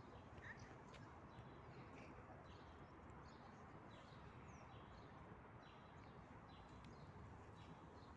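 Near silence: faint, repeated short chirps of small birds over a low, steady background noise.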